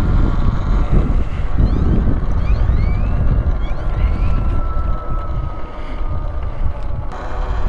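Wind buffeting the microphone while riding a Talaria Sting R electric dirt bike: a loud, steady low rumble of wind noise, with a faint thin whine partway through.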